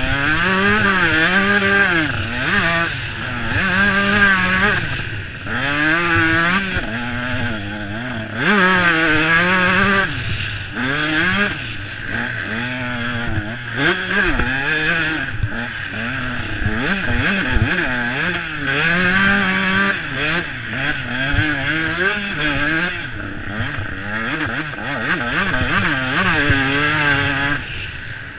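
Motocross bike engine ridden hard on a dirt track, its revs rising and falling over and over as the throttle is opened and shut.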